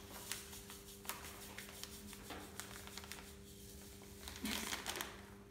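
Faint patter and crinkling as salt is poured from a plastic bag into a jug of warm water, with a louder rustle of the bag a little after four seconds in. A steady low hum lies underneath.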